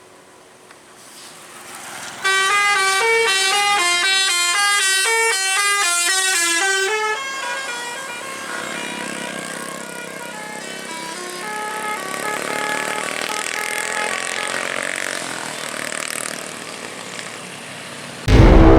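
Bus telolet horn, a multi-tone musical air horn, playing a quick stepping tune that starts about two seconds in, loud for about five seconds and then softer as more tunes follow. Music cuts in right at the end.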